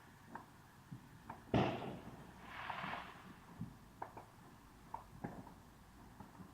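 Fireworks: one sharp bang about one and a half seconds in, followed by a second of hissing, with scattered faint pops throughout.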